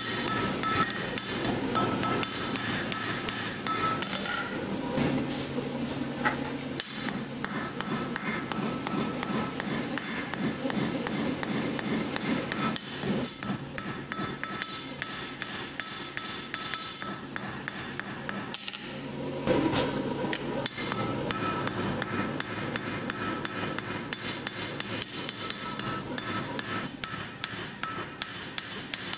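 Hand hammer forging hot iron on an anvil: a long, steady run of quick blows with the anvil ringing.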